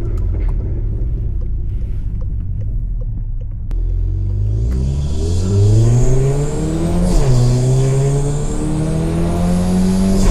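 Turbocharged four-cylinder engine of a stage 3 Volkswagen Golf GTI (MK7) through a decat, straight-piped exhaust. For the first few seconds it rumbles unevenly off throttle with faint crackles, then gives a sharp crack just before 4 s. It then pulls hard, the engine note rising, drops briefly at a gear change around 7 s and climbs again, while a thin high turbo whistle rises above it.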